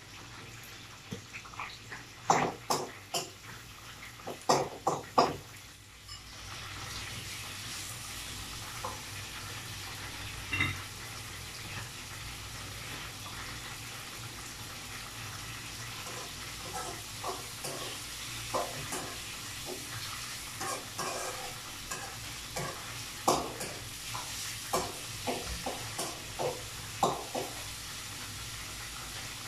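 Chicken pieces sautéing in hot oil with garlic and onion in a wok on a gas stove, sizzling steadily, while a metal spatula clinks and scrapes against the wok as they are stirred. The first few seconds hold sharp knocks; the sizzle rises and settles in at about six seconds.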